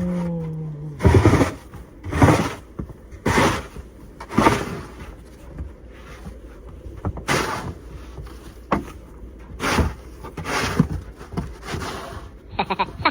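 Snow crunching in a series of short, sharp strokes, roughly one a second, with a couple of longer pauses.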